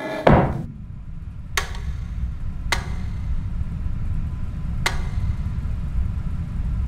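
Wooden fallboard of a Schmidt-Flohr upright piano being closed over the keys, landing with one loud thump about a quarter-second in. A low steady rumble follows, with three sharp clicks a second or two apart.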